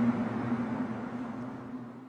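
Steady low droning hum over a rumbling noise, of the kind reported as the 2012 'strange sounds', fading away toward the end.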